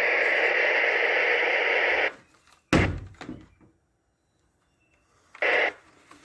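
Galaxy DX939 CB radio's receiver static hissing from its speaker, cutting out about two seconds in, then a thump, near silence, and a brief burst of static near the end before it returns. The audio dropping in and out as the speaker plug is moved is the sign of a bad speaker plug or jack.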